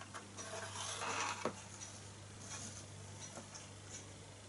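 Small metal clicks, taps and scrapes as hands handle a toy hot air engine's tinplate firebox and base, with a rustling scrape about a second in that ends in a sharp click, over a faint steady hum.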